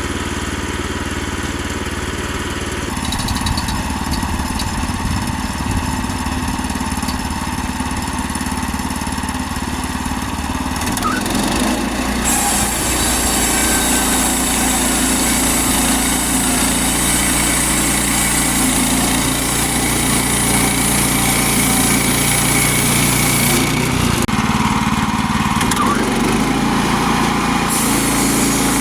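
Gas engine of a Woodland Mills HM122 portable bandsaw mill running steadily. Its sound shifts a couple of times, and a steady high hiss runs from about twelve to twenty-four seconds in.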